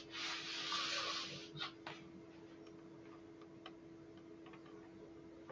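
A soft hissing rush for about the first second and a half, followed by a few sparse computer keyboard or mouse clicks, over a faint steady electrical hum.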